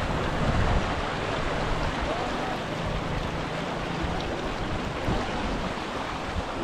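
Steady rush of flowing water from a waterfall, an even noisy hiss with no breaks.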